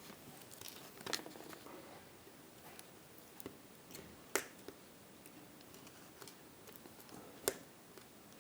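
A handful of faint, sharp clicks and taps from handling small resistors and touching them with multimeter test probes, the two louder ones about halfway through and near the end.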